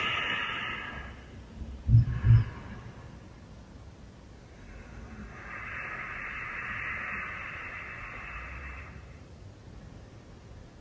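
A person's slow breathing in a yoga pose: a steady breath hiss lasting about four seconds in the second half, after a shorter fading breath at the start. About two seconds in, two soft low thumps come in quick succession.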